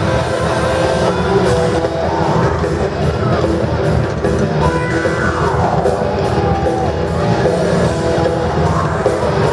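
Loud heavy rock music with electric guitars, over the rising and falling whine of small motorcycle engines circling inside a steel globe of death.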